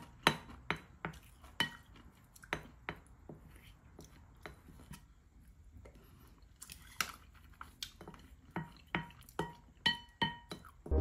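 Wooden spoon and chopsticks scraping and tapping an empty ceramic plate to get the last of the sauce. The sound is a string of sharp clinks, each with a brief ringing tone from the plate. The clinks come thick in the first few seconds and again in the last four, with only a few in between.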